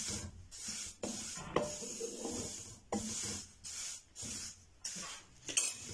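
Wooden spatula scraping and stirring sesame seeds around a metal karahi: a series of rasping strokes, about one a second, as the seeds are dry-roasted on low heat.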